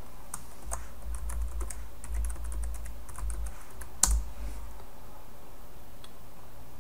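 Computer keyboard typing: a quick run of key clicks for about four seconds, ending in one louder keystroke, then stopping.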